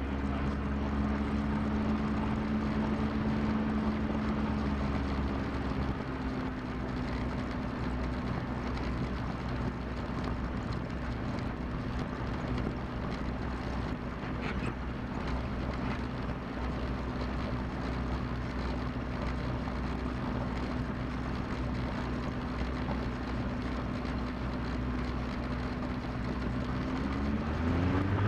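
Diesel engine and propeller of a Cessna 172 running steadily at low power, with a slight drop in engine pitch about six seconds in. Near the end the revs climb quickly and the engine gets louder.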